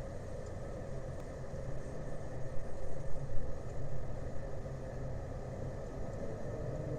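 Low, steady engine rumble, with an uneven louder stretch near the middle.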